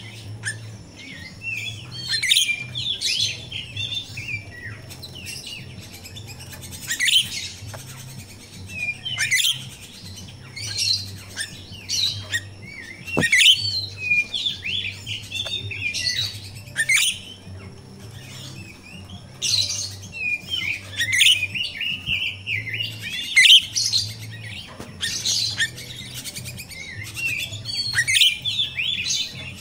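Grosbeak starling (jalak rio-rio) calling in repeated bursts of high chirps and squeaky chatter every few seconds, over a faint low hum.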